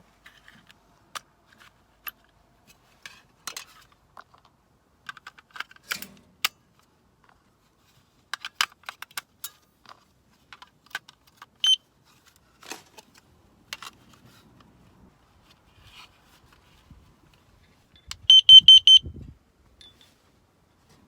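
Scattered clicks and light knocks of gear being handled, then a single high electronic beep, and near the end a quick run of about five loud high beeps from an electronic device.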